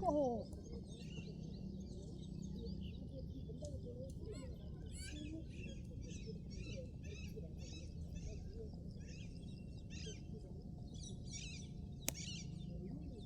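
Small birds chirping over and over, short repeated high calls, over a steady low outdoor rumble. A brief falling tone sounds right at the start, and one sharp crack comes near the end.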